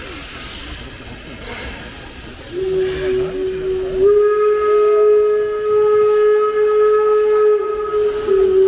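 Steam locomotive with steam hissing, then its whistle sounding one long blast about two and a half seconds in. The whistle steps up in pitch about a second and a half later as it opens fully and is held, with a brief dip near the end.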